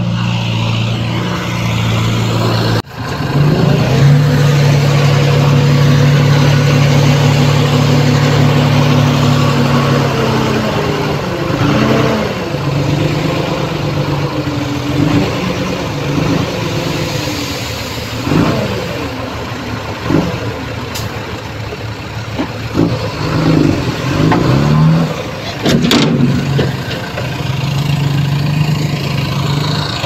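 Heavy diesel engines of a dump truck and bulldozer running. They run steadily at first, with a brief break about three seconds in, then rev up and down repeatedly through the second half.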